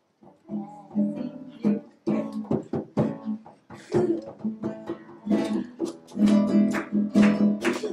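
Acoustic guitar strummed in chords, the strums coming faster and louder after about five seconds.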